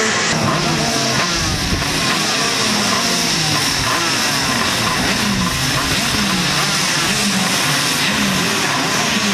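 A pack of 125 cc two-stroke racing kart engines running together, with pitches rising and falling repeatedly as the drivers blip their throttles while the karts roll in grid formation toward the start.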